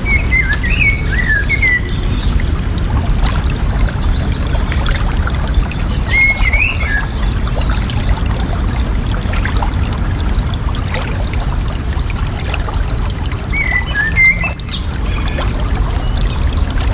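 Steady rushing, trickling water, with a small bird singing three short warbled phrases: one near the start, one about six seconds in, and one near the end.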